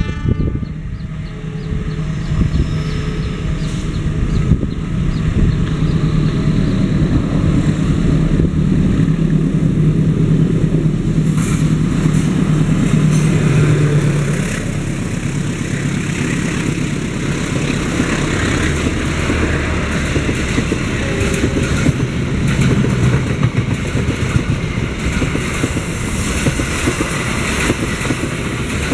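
A diesel-electric locomotive hauling a passenger train passes close by, its engine running with a steady low hum. In the second half the passing coaches' wheels rumble and clatter on the rails.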